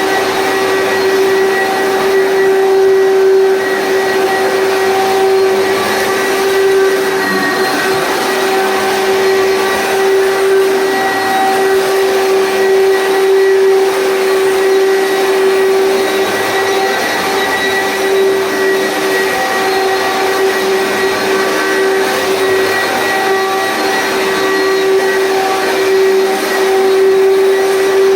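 Commercial vacuum cleaner running steadily: a constant motor whine that holds one pitch, over the rushing hiss of air.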